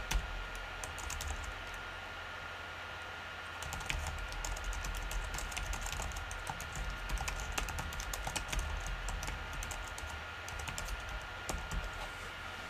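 Typing on a computer keyboard: runs of quick key clicks, with a pause of about two seconds shortly after the start, over a faint steady hum.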